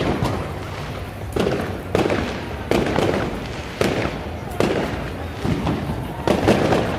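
Aerial fireworks shells bursting in a steady series, a sharp bang roughly every second, each trailing off in an echoing rumble.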